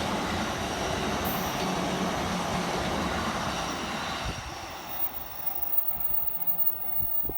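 Train running through a level crossing on the Tohoku Main Line, its rolling wheel noise fading away about four seconds in.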